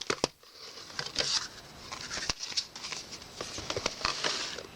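Handling of DVD box-set packaging: scattered light clicks and taps with a rustle of card and paper.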